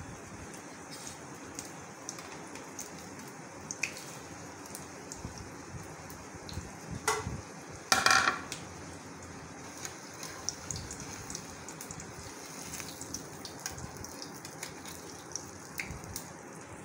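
Roti shallow-frying in hot oil in an aluminium frying pan: steady sizzling scattered with small crackles and pops, with one louder burst about eight seconds in.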